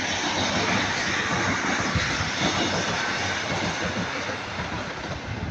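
Class 150 Sprinter diesel multiple unit passing by with a steady rushing rumble that eases off near the end as it draws away.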